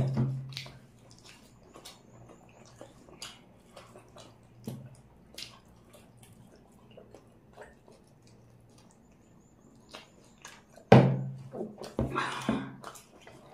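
Close-up wet eating sounds: chewing, lip smacks and fingers squelching into chicken curry, heard as scattered short clicks and snaps. A louder wet slurp comes near the end.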